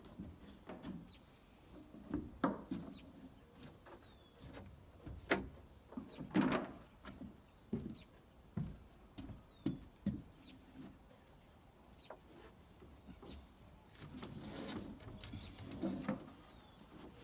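Irregular footsteps and knocks on a wooden plank deck as a worker walks about and handles rope and timber, with a few faint bird chirps.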